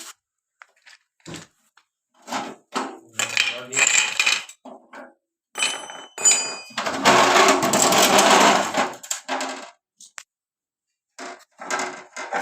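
Metal kitchen items clattering and clinking, with a brief ringing clink about six seconds in, followed by a louder rushing clatter lasting about two seconds.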